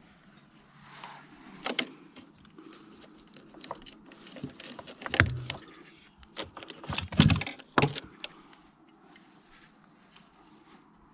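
Irregular rattling and clunking of a mountain bike jolting over a rough surface, with a jingle like keys; the loudest knocks come about five seconds in and again around seven to eight seconds.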